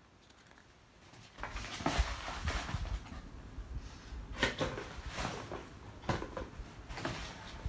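Gift packaging being handled: a plastic shopping bag rustling and a cardboard gift box being pulled out and moved about, with a few sharper knocks of the box. It starts after a quiet second or so.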